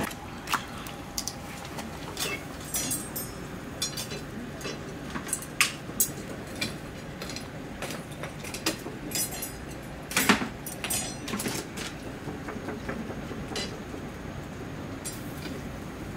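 Scattered light clinks and taps from eel skewers and utensils being handled at a charcoal grill, over a steady hiss. A louder cluster of clinks comes about ten seconds in.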